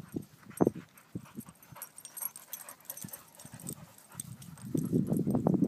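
Two white boxer dogs play-wrestling up close, making short bursts of dog noise. The bursts come sparsely at first and bunch together near the end.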